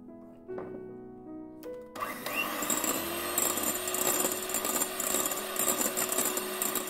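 Electric hand mixer starting up about two seconds in and running steadily, its beaters whipping egg whites and sugar in a glass bowl. Soft piano music plays before it starts.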